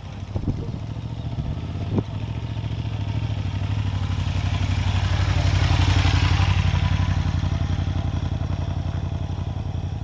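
A motorcycle engine idling close by, with a steady low pulse, while another motorcycle rides past close by, growing louder to a peak about six seconds in and then fading as it moves off. A couple of sharp knocks sound in the first two seconds.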